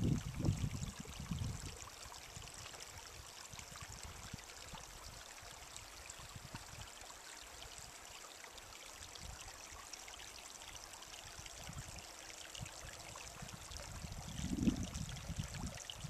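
Small spring-fed stream trickling over rocks, a faint steady babble. Wind buffets the microphone with low rumbles in the first couple of seconds and again near the end.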